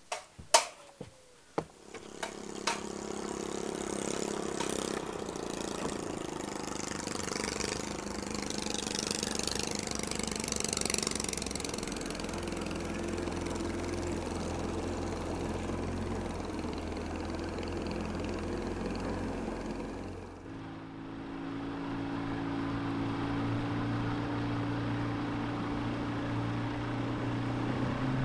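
A few sharp knocks, then a bass boat's outboard motor starting about two seconds in and running steadily as the boat gets under way, with a hiss of water. About two-thirds through, the sound changes abruptly to the outboard running under way with less hiss.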